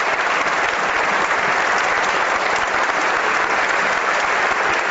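Steady applause from a chamber full of parliamentarians clapping their hands.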